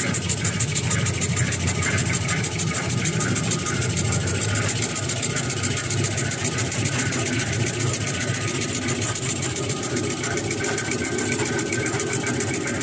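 Two-line facial tissue folding machine running steadily at speed: a fast, even mechanical rhythm from its rolls, with a low rumble and a high hiss over it.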